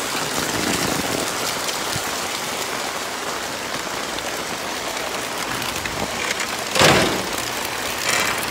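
Steady rain falling on a wet street, with one brief louder noise about seven seconds in.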